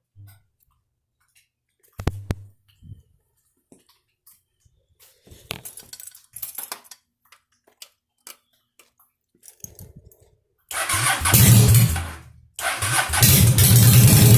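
A few faint clicks and rattles, then a Honda Shadow Spirit 750's V-twin through aftermarket Backdraft exhaust pipes starts up about eleven seconds in. It runs briefly, fades out, then catches again and settles into a steady, evenly pulsing idle.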